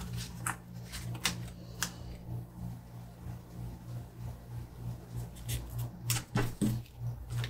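Light, irregular taps and clicks of fingers pressing and smoothing a paper sticker onto a planner page, over a steady low hum.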